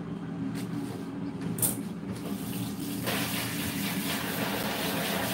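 Kitchen faucet turned on about three seconds in, water running steadily into the sink as something is washed under it, after a few light knocks at the counter.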